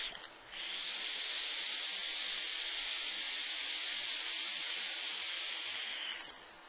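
Steady hiss of a long direct-to-lung draw on a Grand Vapor Trident dual-coil dripper, air rushing through its large airholes over the fired coils. It breaks off briefly near the start, resumes about half a second in, and stops sharply about six seconds in.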